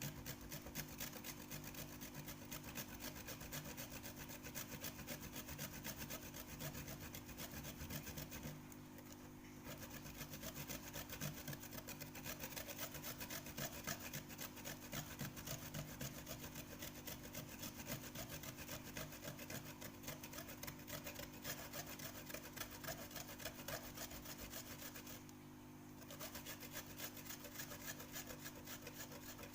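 Kencur (aromatic ginger) root rubbed quickly back and forth on a small hand grater lined with a piece of plastic bag, a steady rasping scrape that pauses briefly about nine seconds in and again near the end.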